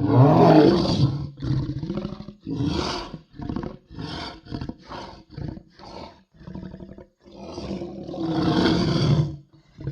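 Loch Ness Monster sound effect: a long, loud creature roar, then a string of short grunting calls, and a second long roar near the end.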